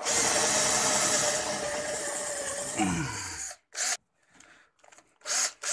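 12V cordless drill boring into a block of wood, its motor running steadily under load for about three and a half seconds, then winding down in falling pitch as the trigger is released. Two brief bursts follow near the end.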